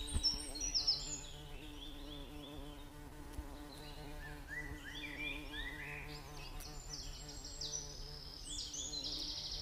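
Birds chirping in runs of short, quick high notes, over a steady low buzzing hum.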